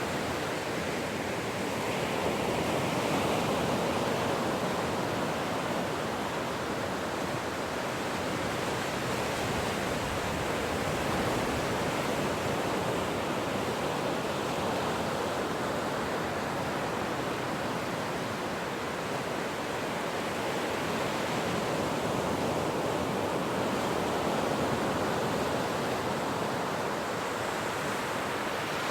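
Ocean surf: a continuous rush of breaking and washing waves that slowly swells and eases.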